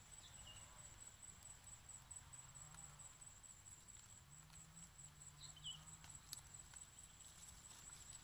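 Near silence: a faint steady high-pitched whine, with two brief faint chirps, one just after the start and another about two-thirds in, and a few faint light clicks.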